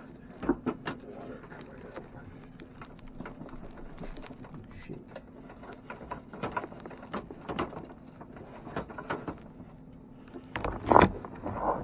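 Scattered light knocks and clicks from handling a push mower tipped on its side while water and oil drain from its engine, with a few louder clunks near the end, over a steady low hum.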